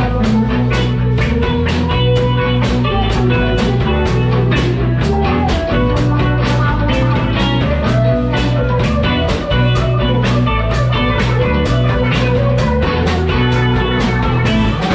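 Live blues band playing an instrumental break between verses: guitar over bass and drums, with a steady beat.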